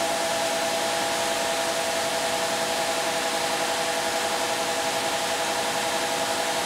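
Bauer 2300 psi brushless electric pressure washer running at full pressure, spraying through a Ryobi-size 15-degree nozzle: a steady loud hiss of spray with an even motor whine. On this nozzle it holds about 1900 PSI, less than with its factory nozzle.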